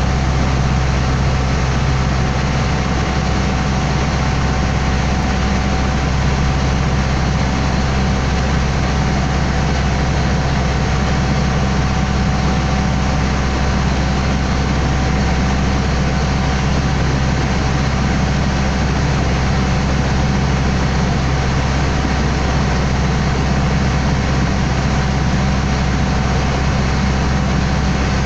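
Water taxi's engine running steadily under way, heard loud from on board: a constant low drone with a faint steady whine above it.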